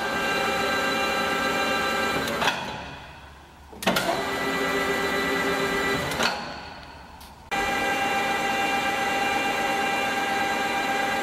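Geared headstock and spindle of a KAMI DKM 410 LS center lathe running with a steady gear whine. It is switched off twice, each time with a click and a short run-down of falling pitch, then started again. The last run carries a different, higher-toned whine, as from another speed setting.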